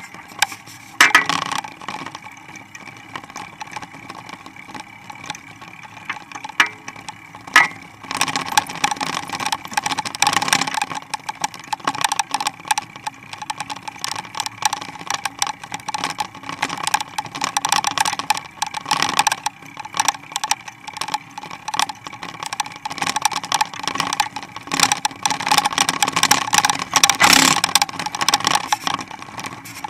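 Mountain bike with a springer dog attachment rolling over a paved street: a steady rolling noise with constant irregular rattling and clattering from the bike and attachment, busier from about eight seconds in.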